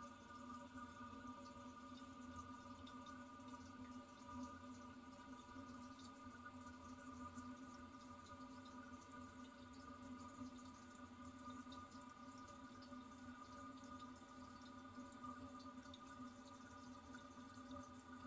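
Toilet cistern refilling, heard faintly: a steady hiss from the fill valve with a faint held whine and a few small drips.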